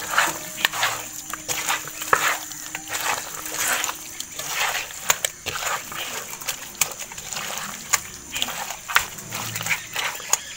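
Hands squeezing and rubbing raw mutton pieces with a wet ground-spice paste in a clay pot, an irregular run of squelches and sticky smacks as the marinade is worked into the meat.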